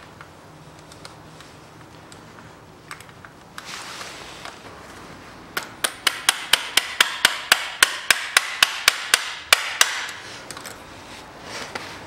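Hammer tapping a steel pin back into a Chevrolet Lanos five-speed manual gearbox: a quick run of about sixteen sharp taps, roughly four a second, starting about five and a half seconds in and stopping near ten seconds, after a few light clicks of parts being handled.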